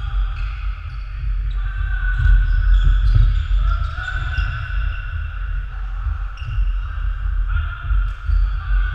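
Players' footsteps thudding on a wooden sports-hall floor as they run, with voices echoing in the large hall.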